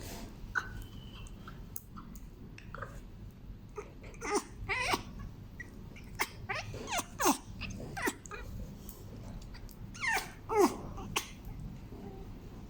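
A dog making odd vocal noises: short whining cries that slide down in pitch, coming in several bunches with pauses between.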